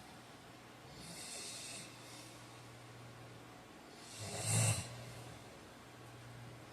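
A man snoring in his sleep: a soft breath about a second in, then one loud snore a little past the middle.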